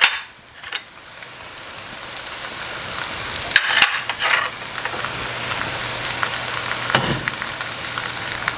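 Diced onion, ginger and garlic sizzling in hot oil in a pan as spices are added and stirred in, the sizzle growing louder over the first few seconds. A spoon knocks and scrapes against the pan a few times, near the start, around the middle and again later.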